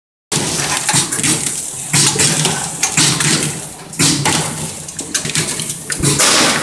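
Rotary apple coring and slicing machine running, a steady motor hum under a burst of rushing mechanical noise about once a second as it cycles through its coring and cutting strokes.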